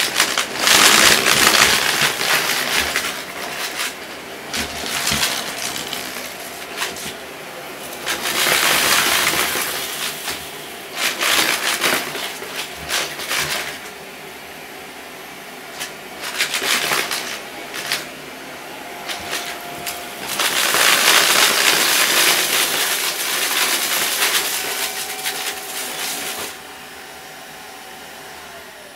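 Dyson Ball Multi Floor 2 upright vacuum running over carpet and sucking up small pieces of cardboard, with loud bursts of crunching and rattling each time it pulls in debris. Near the end the level drops and the motor tone falls away as it winds down.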